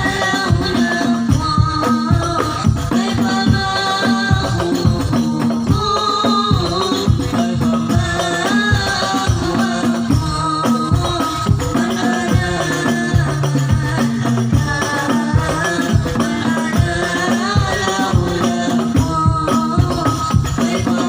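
Shalawat played on rebana frame drums with jingles: a fast, steady interlocking drum pattern under a sung melody.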